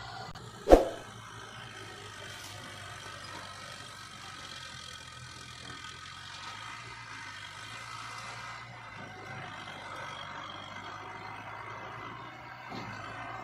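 Heavy diesel construction machinery running steadily, with one sharp, loud metallic clank about a second in.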